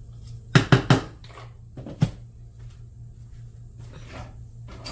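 Sharp knocks of kitchenware being handled: three quick ones a little over half a second in, and one more about two seconds in, over a steady low hum.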